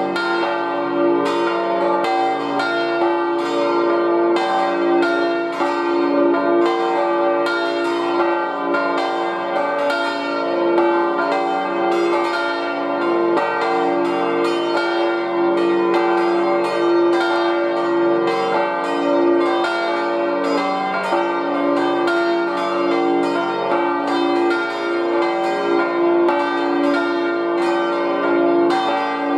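Full peal of five swinging church bells tuned d', f', g', b-flat' and c'' (four cast by Rüetschi of Aarau in 1956, one by Jakob Rüetschi in 1834), ringing to call to the Sunday service. Their strokes overlap in a continuous, steady ringing.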